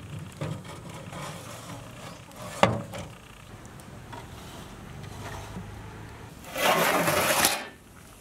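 Metal idli trays being handled in a stainless-steel box steamer over a wood fire, with a sharp clank about two and a half seconds in and a scraping rush of about a second near the end.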